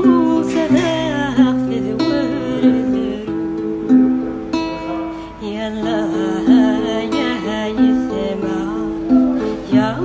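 Background music: a plucked string instrument like a guitar plays a melody over held low notes.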